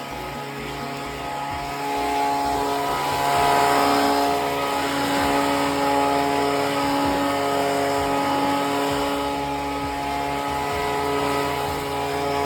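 Small gasoline engine running steadily at high speed, with a slight swell in loudness about two seconds in.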